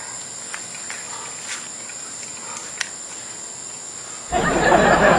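Crickets chirring steadily in the background. About four seconds in, a sudden loud rushing hiss starts and keeps going.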